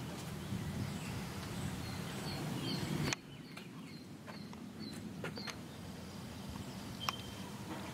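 A bird chirping a run of short, high notes, about three a second, over a low steady rumble; the rumble drops sharply about three seconds in. A few sharp clicks follow later.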